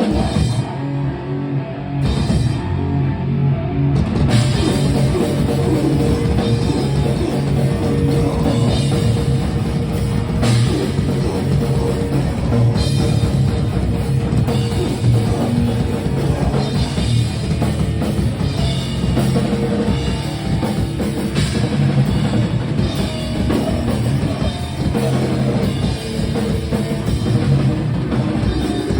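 Heavy rock band playing live and loud, with drum kit and distorted guitar. The drums start sparsely, then the full band comes in about four seconds in.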